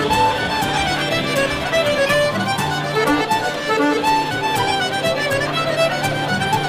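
Background music: a fiddle playing an Irish tune in quick, short notes over a steady low accompaniment.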